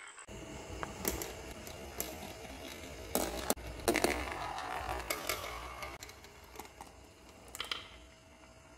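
Two glass marbles rolling through a marble run of aluminium channel, clear plastic tubing and a wooden wavy slope: a steady rolling rumble broken by sharp clicks and clacks as they hit joins and each other, loudest about four seconds in and fading near the end.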